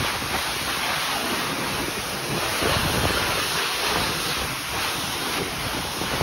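Self-serve car wash high-pressure wand spraying water onto a car's bodywork, a steady hiss.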